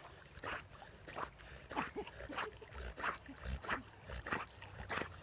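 Rhythmic water splashing, a stroke about every half second or so, from a dog swimming close by and paddling.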